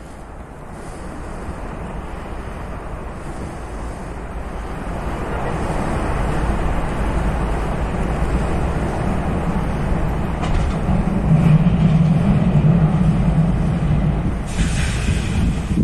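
SA135 diesel multiple unit approaching along the track, its rumble growing louder as it nears. A steady low engine drone is loudest a few seconds before the end, and a brief hiss comes near the end.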